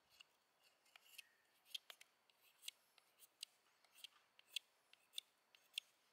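Steel knife blade shaving thin curls off a dry wooden stick in about ten short, crisp strokes, carving a feather stick.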